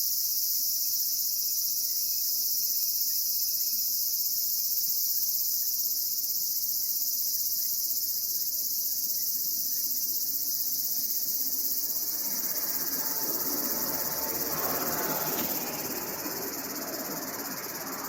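Insect chorus: a dense, steady, high-pitched chirring. From about twelve seconds in, a softer low rushing noise comes in under it.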